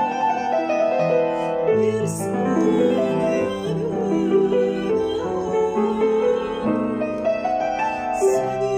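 A woman singing held notes with vibrato over piano accompaniment.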